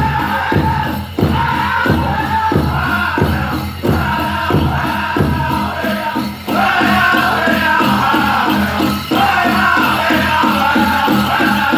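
Powwow drum group singing a chicken dance song: several voices in a high-pitched chant over a large powwow drum struck in a steady, fast unison beat. The singing falls off briefly between phrases while the drum keeps going.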